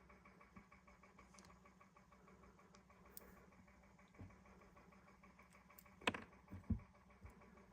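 Near silence over a faint steady hum, broken by a few light metallic clicks and knocks, loudest about six seconds in: small parts being handled as the cleaned anti-backfire shut-off solenoid is fitted back into the small engine's carburetor.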